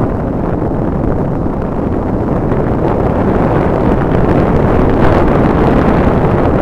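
Steady, loud wind buffeting on an action-camera microphone while riding a Yamaha Byson motorcycle, with the engine running underneath.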